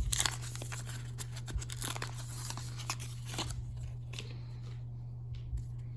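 Hockey trading cards being handled and flipped through in the hands: a run of small dry clicks and rustles that thins out after about three and a half seconds. A steady low hum runs underneath.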